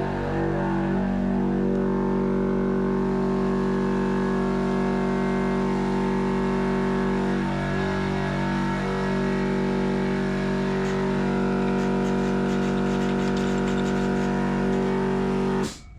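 Background music: steady held chords that change a few times, cutting in and cutting off abruptly.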